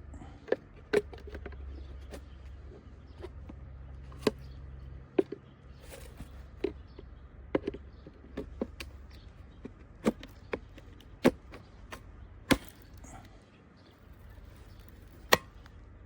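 Irregular sharp clicks and knocks, about fifteen spread unevenly through the stretch, over a faint low hum.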